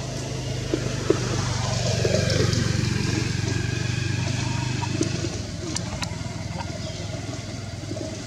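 A motor engine running steadily with a low hum, growing louder about two seconds in and easing off after about five seconds, with a couple of short clicks near the six-second mark.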